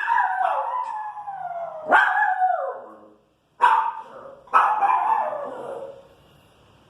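Pinscher dog barking and howling in four long, drawn-out calls, each sliding down in pitch: agitated barking at noise from the street.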